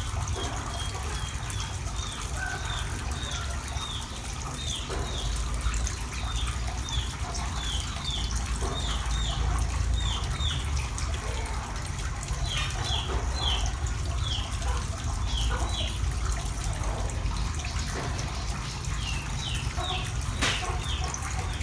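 Water trickling and dripping in a cement eel tank, with many short high plinks, one or two a second, over a steady low rumble.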